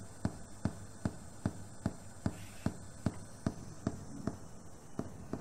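A steady electronic pulse from a musician's electronics setup played through loudspeakers: short, evenly spaced clicks with a little low thud, about two and a half a second, keeping a regular beat for a movement improvisation exercise on pulse.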